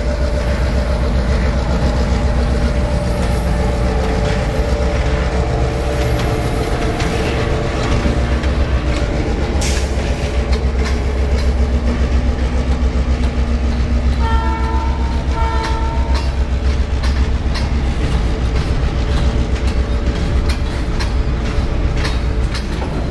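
Mass Central diesel locomotive passing close by, its engine running with a steady low rumble. About fourteen seconds in its horn sounds two short blasts, and freight cars roll past with wheels clacking over the rail joints near the end.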